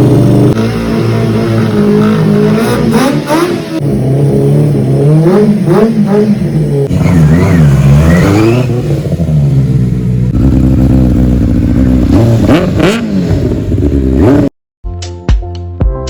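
Superbike engine revving in a string of short cut-together clips, its pitch climbing and falling with each blip of the throttle. Near the end it cuts off and music with a regular beat begins.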